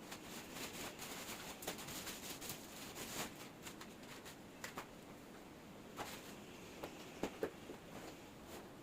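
Packaging being handled during an unboxing: faint irregular rustling with scattered clicks and taps, busiest in the first few seconds, with a couple of sharper taps near the end.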